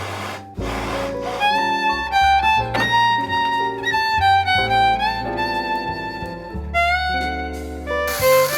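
Instrumental background music: a melody of held notes over a bass line, with a short hissing swell near the end.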